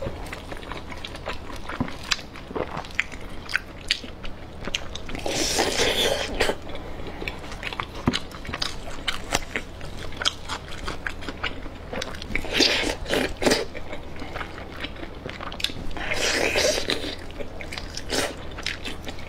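Close-miked eating of braised chicken: chewing with many wet smacking clicks of the mouth, and three louder, longer stretches of crunchy chewing about five, twelve and sixteen seconds in.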